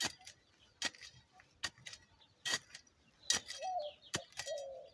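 A metal digging tool striking the soil in sharp, clinking strokes, about one a second, as a dug-up taro (dasheen) plant is replanted and covered.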